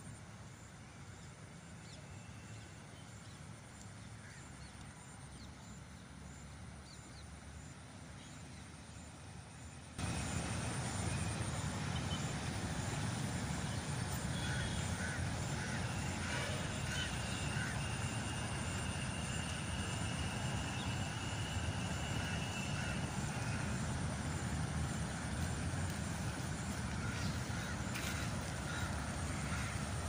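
Steady low outdoor rumble that steps up suddenly about a third of the way in. Over it come a few short bird calls near the middle and a thin, steady high tone held for several seconds.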